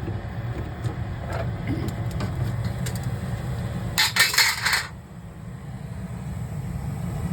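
Lennox SLP98V modulating gas furnace running with a steady low hum, while its sheet-metal access door is handled: a few light metallic clicks, then about four seconds in a brief loud metal clatter as the panel comes off. The hum dips for a moment just after the clatter.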